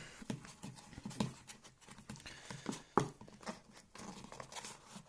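Hands handling a product box and its packaging: scattered light knocks, taps and rustles of cardboard and packing as the contents are searched and taken out.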